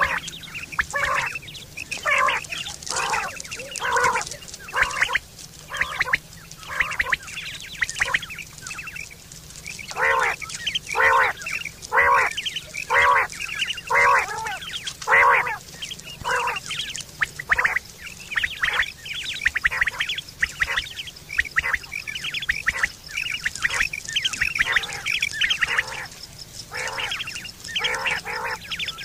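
Quail (batair) calling over and over, short pitched calls about one a second, coming in runs with brief lulls.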